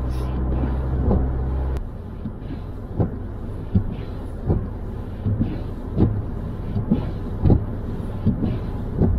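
Car cabin noise while driving on a snowy road: a steady low rumble that cuts off abruptly about two seconds in. After that, lighter road noise with a short thump about every second as the windscreen wipers sweep.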